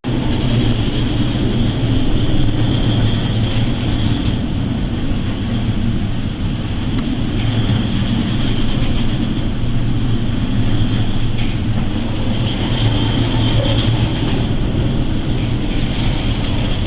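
Steady low drone of a ship's engines and machinery, under a constant rushing noise of wind and sea.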